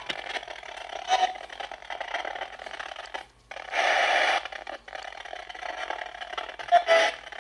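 Polterpod spirit box sweeping through radio frequencies: continuous radio static with brief snatches of broadcast sound, and a louder rush of static about four seconds in.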